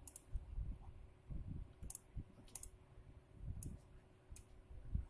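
About five scattered clicks from a computer mouse and keyboard, at irregular intervals, with soft low knocks between them.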